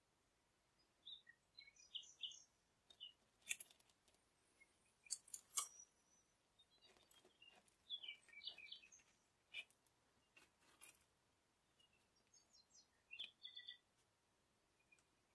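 Faint crackles and clicks of a soft baked bun's crust and crumb being torn apart by hand, with a few faint high bird chirps in the background.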